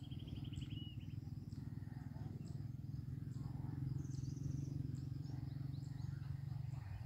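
Small birds calling: a quick trill at the start, another higher trill about four seconds in, and scattered short chirps. Under them runs a steady low rumble.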